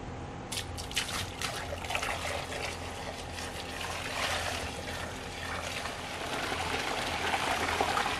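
EvapoRust rust remover poured from a bucket into a plastic tub, splashing onto the rusted sheet-metal fireplace base it is filling around. A few splashes come about half a second in, then the pour turns into a steady gush.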